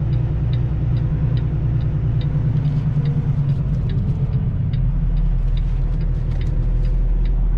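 Kenworth semi-truck's diesel engine running at low speed as the truck creeps forward. Its note deepens about halfway through, and a light ticking comes about three times a second.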